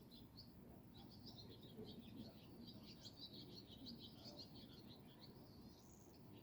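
Faint chirping and twittering of small songbirds, a quick run of short high notes that is busiest in the middle, over a low steady background hum.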